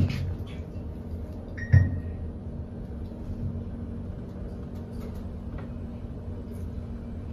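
Schindler 5500 traction elevator car in travel, giving a steady low hum. There is a thump at the start, and a sharp knock with a brief high beep just under two seconds in.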